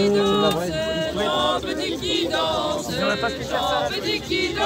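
Several people's voices overlapping, a crowd talking or singing together, with no single voice standing out.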